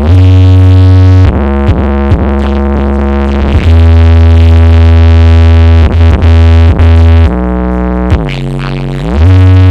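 Electronic dance music played very loud through a large sound-system rig, with a heavy bass line and a synthesizer that slides up in pitch just after the start and again near the end.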